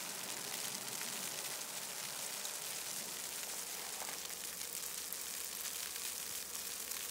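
Steady soft hiss of quiet outdoor night ambience in falling snow, with a low distant rumble coming in about three seconds in.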